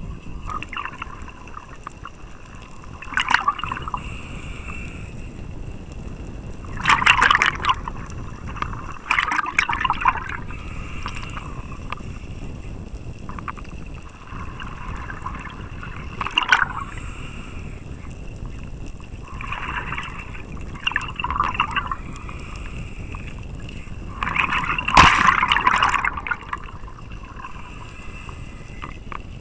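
Underwater sound picked up through a camera housing: a scuba regulator's exhaled bubbles bubbling in bursts every few seconds, the loudest near the end, over a steady low rush of strong current.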